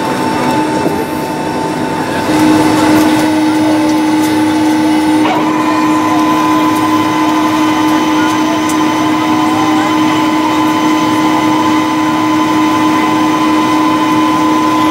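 Jet engine whine of a Boeing 757-204 heard from inside the cabin, its Rolls-Royce RB211 engines giving steady high tones over a rushing noise. A new lower tone comes in and the sound grows louder about two seconds in, and the higher tone steps up in pitch about five seconds in.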